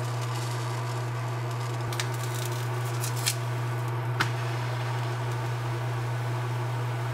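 Crepe batter sizzling faintly in a hot oiled nonstick frying pan, with a few light clicks of a spoon and spatula against the pan, over a steady low hum.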